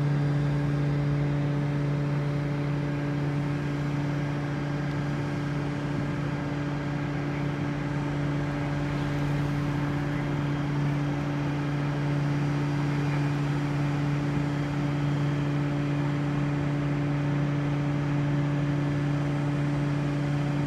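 Vacuum tanker truck's engine and pump running at a constant speed, a steady low drone that holds the same pitch throughout, while it sucks liquid manure out of an overturned trailer through a hose.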